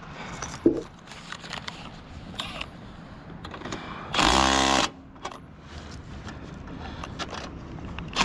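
Milwaukee M12 FUEL cordless impact driver running in one short burst of under a second about four seconds in, driving a clamp bolt on the aerial strand. A sharp knock sounds just under a second in, among scattered light clicks of hardware being handled.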